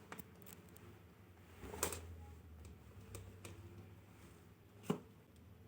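Faint handling noises: scattered light clicks and a soft rustle, with one sharper click about five seconds in.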